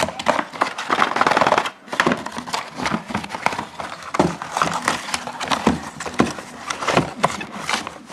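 Handling noise: a dense run of irregular clicks, knocks and crinkling, busiest about a second in and thinning out afterwards.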